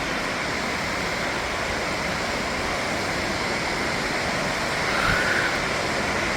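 Steady rushing of a large waterfall, the McCloud River's Middle Falls, pouring into its plunge pool.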